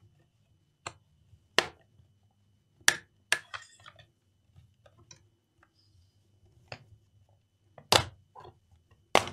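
Plastic retaining clips of a laptop's bottom case snapping free as the case is pried open along its seam: several sharp, irregular snaps, the two loudest near the end.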